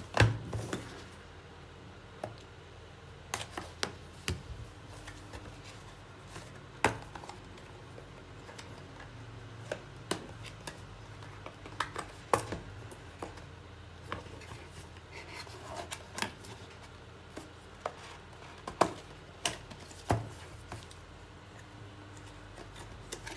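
Hands handling and opening a small cardboard product box for a portable SSD: scattered clicks, taps and light scraping of the packaging, a few seconds apart.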